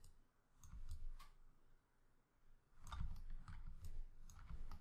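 Scattered computer mouse clicks, several in a row early on and again near the end, with a quiet stretch between.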